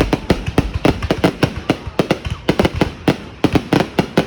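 Fireworks going off in a rapid, irregular series of sharp bangs, about five or six a second without a break.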